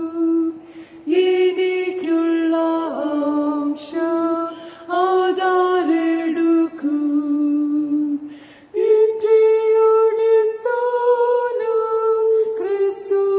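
A single voice singing a slow Malayalam church hymn, long held notes stepping up and down in pitch, with short pauses for breath between phrases.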